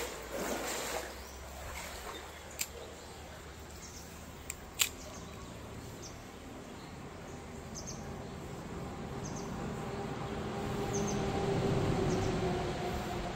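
Spinning reel handled by hand: a few sharp clicks, then the reel winding with a steady whir that grows louder toward the end. Small birds chirp faintly in the background.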